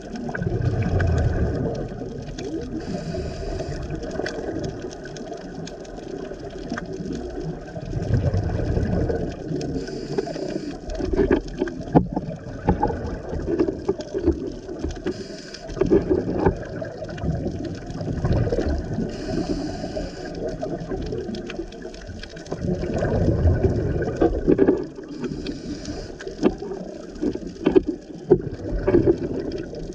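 Underwater scuba breathing through regulators: a rumble of exhaled bubbles every several seconds, with short hisses of inhaled air between them.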